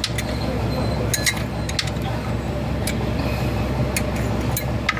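A few sharp metallic clicks and clinks at irregular intervals, over a steady low mechanical hum.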